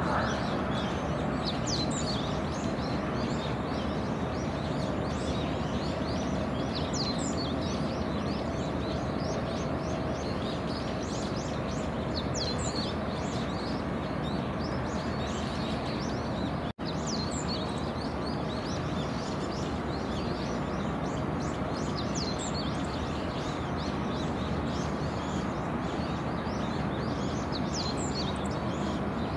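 Many small birds chirping in short, high, falling calls over steady background noise. The sound drops out for an instant a little past halfway.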